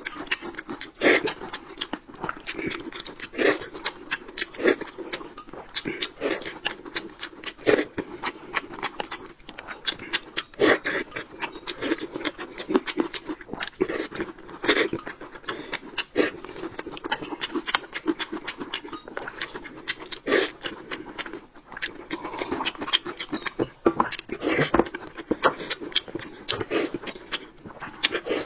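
Close-miked eating sounds: two people chewing and lip-smacking on boiled dumplings and meat, with many short wet smacks and clicks at an irregular pace.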